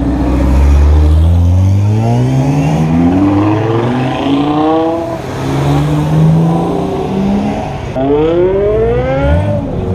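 A sports car engine accelerating hard through the gears: its pitch climbs, drops back at each gearshift and climbs again. Near the end there is a steep high-revving climb that falls away.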